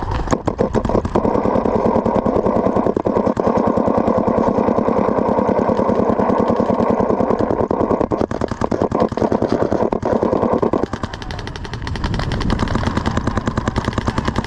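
A small engine running with a steady drone, mixed with a rapid stream of sharp pops from paintball markers firing. The engine drone drops away about eleven seconds in, while the popping carries on.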